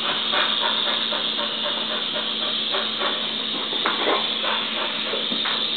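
Small remote-control toy helicopter's electric motor and rotor whirring steadily with a constant hum and hiss, with scattered light clicks and taps over it.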